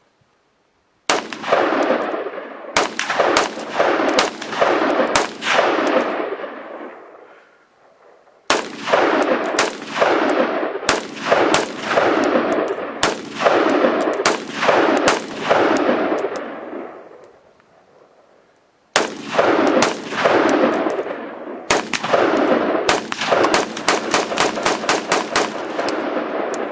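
AR-15 semi-automatic rifle fired in three strings of shots, each shot sharp with a long echoing tail. The first two strings are spaced about a shot a second; the last speeds up to rapid fire of several shots a second near the end.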